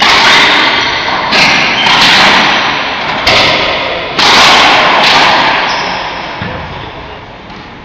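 Racquetball rally: the hollow rubber ball cracking off racquets and the court walls, about six sharp loud hits in the first five seconds, each ringing on in the court's echo. The echo dies away over the last couple of seconds.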